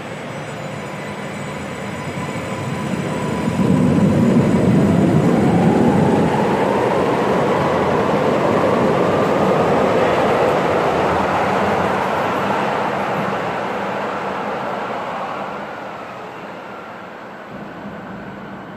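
Stuttgart Stadtbahn light-rail train passing, growing louder over a couple of seconds and fading away near the end. A motor whine climbs steadily in pitch as the train picks up speed.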